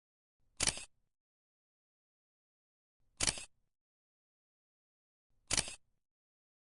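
Camera shutter clicks, three of them about two and a half seconds apart, with dead silence between.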